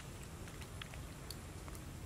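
Outdoor ambience: a steady low rumble, like wind on the microphone, with scattered faint ticks and clicks.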